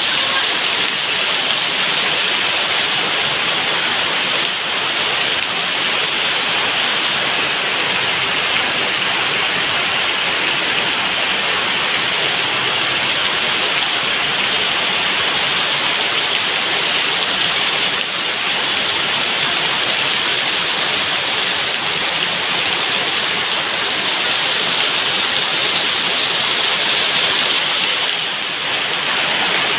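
Heavy rain pouring steadily onto wet gravel ground and puddles, an even, unbroken hiss of splashing drops.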